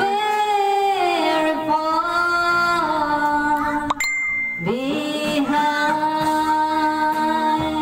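A woman singing long, drawn-out notes into a karaoke microphone over a backing track, with a sharp click and a short ding about four seconds in.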